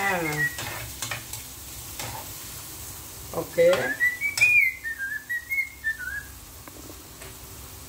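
Garlic and onions sizzling in hot oil in a wok while being stirred. About four seconds in, someone whistles a short wavering tune.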